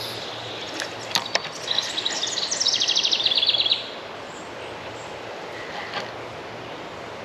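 A bird sings a rapid trill of evenly spaced high notes for about two seconds, starting near two seconds in and falling slightly in pitch, over steady outdoor background noise. A couple of sharp clicks come just before the trill.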